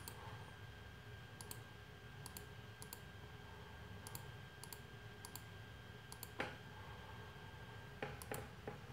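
Faint computer mouse clicks, scattered and often in quick pairs, as a password is entered on a Hikvision DVR's on-screen keyboard.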